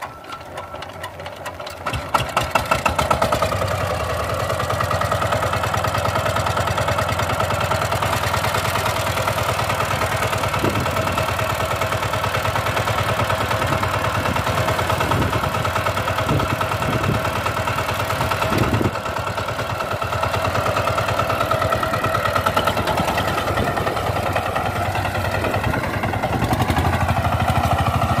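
Dolphin 20 power tiller's single-cylinder diesel engine being cranked and catching about two seconds in, then running steadily with a regular chugging beat.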